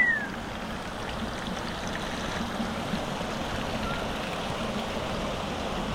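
Steady rushing of a mountain stream's flowing water, with a short rising-and-falling whistle right at the start.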